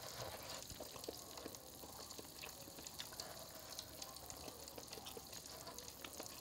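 Fish cake soup simmering in a pot: faint bubbling with scattered small pops and ticks.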